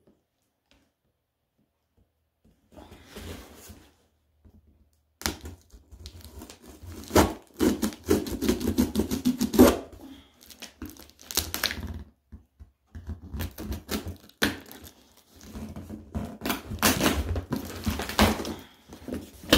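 Cardboard shipping box being cut and torn open: packing tape tearing, with cardboard flaps and plastic packing crinkling and knocking. It comes in irregular bursts, starting a few seconds in.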